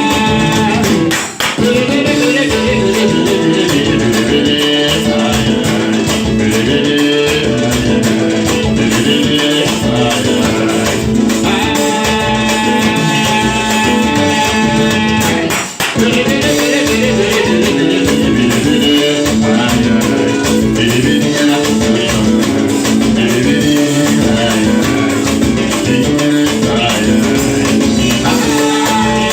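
Upbeat Latin-style music with a shaker rhythm, guitar and singing. It cuts out for an instant about a second in and again about halfway through.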